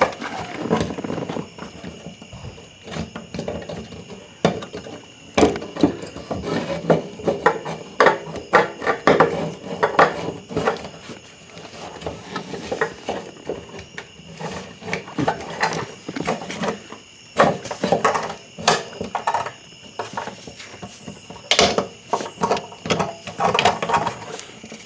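Fuel pump and sending unit being worked and pulled out of a car's fuel tank by hand: irregular plastic and metal clicks, knocks and scrapes.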